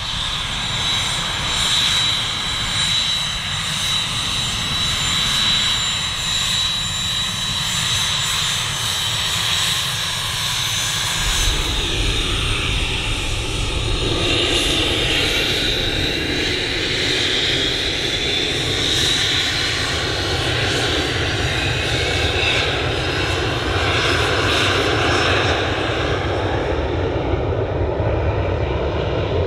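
Learjet 35A's twin Garrett TFE731 turbofans running at taxi power, a steady high whine over a jet rumble. About eleven seconds in the sound turns deeper and fuller, and a few seconds later the whine rises in pitch.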